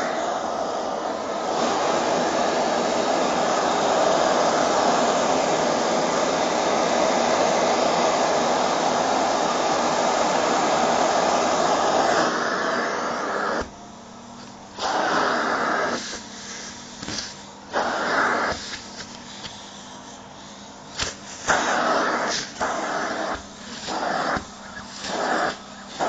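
Vacuum cleaner running with its nozzle on a shiny nylon down jacket, a loud steady rush of suction. About halfway through, the sound drops suddenly and then comes back in irregular loud bursts of rushing air, as the nozzle seals against the fabric and lifts off again.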